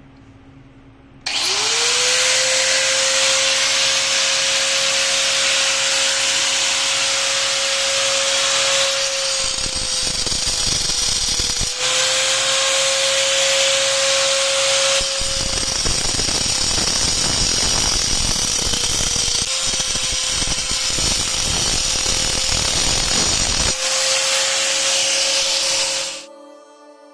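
Electric motor-driven machine starts about a second in, its whine rising quickly to a steady high pitch over a loud rushing noise. It runs steadily and shuts off near the end.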